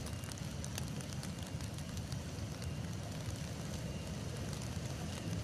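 Hot volcanic mudflow of steaming ash and debris rushing down a river channel: a steady low rumbling rush with faint scattered crackling.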